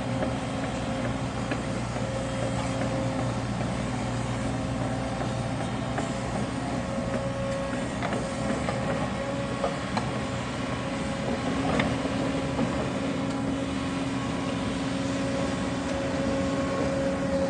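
Caterpillar 307 excavator's diesel engine running steadily, with a steady high hum over it and a few scattered light knocks.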